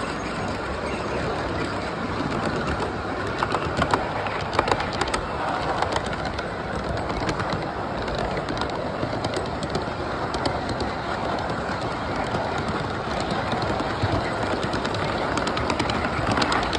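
Large-scale model freight train rolling along its track, a steady running rumble with scattered sharp clicks as the wheels cross rail joints, heard close up from one of its cars.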